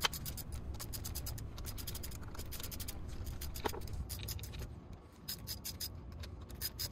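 Ratchet with a 10 mm swivel socket clicking in several quick runs with short pauses between, as the carburetor mounting bolts are slackened.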